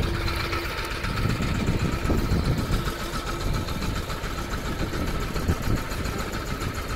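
A small fishing boat's engine idling steadily as a continuous low rumble, with a faint steady whine above it.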